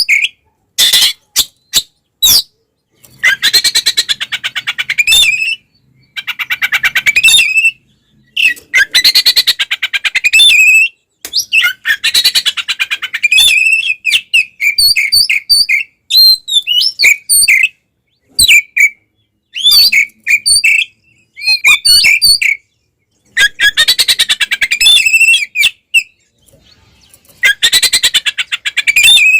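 Oriental magpie-robin (kacer) singing in agitated fighting mode. Loud bouts of very rapid buzzing chatter, each two to three seconds long, alternate with clear whistled notes and phrases, with short pauses between them.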